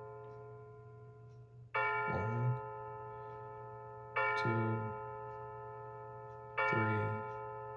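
Battery-powered clock chime movement striking the hour: three bell-like strokes about two and a half seconds apart, each ringing on and slowly fading. The clock is counting out the hour after its hands were advanced.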